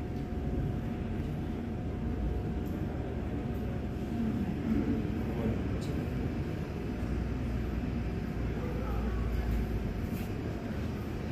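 Boeing 737-800's CFM56-7B jet engines running at low taxi power as the airliner rolls toward the camera. They make a steady low rumble heard across the airfield.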